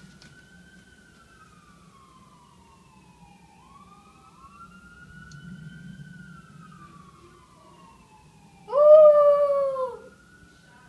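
Police siren wailing faintly, its pitch slowly rising and falling. About nine seconds in, a dog howls along with it once for about a second, much louder than the siren.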